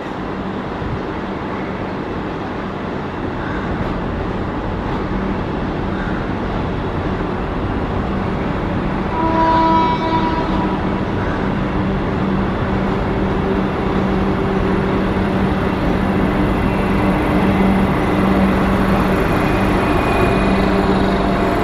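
Vande Bharat Express electric train set rolling in at low speed. Its running noise and a steady hum grow louder as it approaches and passes, and a short horn blast of about a second and a half sounds about ten seconds in.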